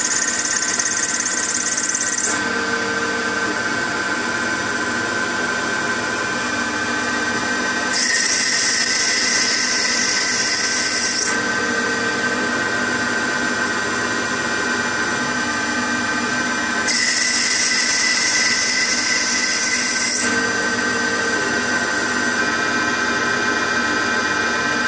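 CNC-converted Optimum 180x300 mini lathe running under program with a steady whine from its motors while it turns a white plastic workpiece. Three times a high hiss lasts about three seconds as a cutting pass is taken, and each is followed by a short lower tone as the carriage moves.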